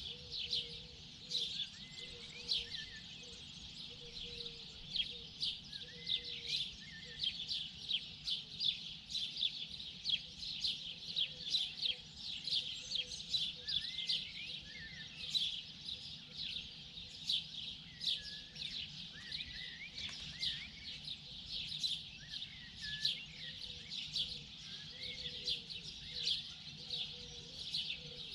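Morning chorus of many birds: a dense, continuous twittering of rapid high chirps, with occasional slower whistled phrases and a soft, low repeated call underneath.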